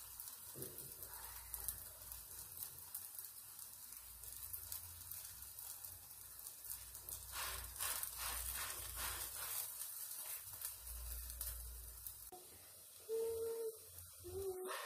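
Layered Moroccan flatbread (melwi) frying in a lightly oiled non-stick pan, a faint steady sizzle. About halfway through it is handled and turned over, with a few soft handling noises.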